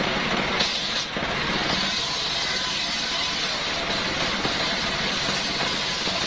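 Stationary engine running steadily, driving a homemade belt-driven circular saw while coconut-wood planks are fed through the blade.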